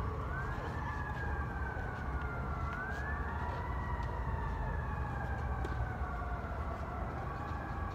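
Emergency-vehicle siren wailing, its pitch slowly rising and falling, over a steady low rumble.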